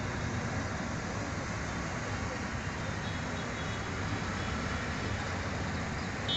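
Steady hum of distant city road traffic.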